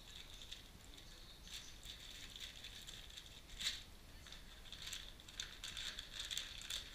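Plastic bags crinkling and rustling as rubber stabiliser bushes are handled and taken out of their packaging, with a louder crackle a little past halfway.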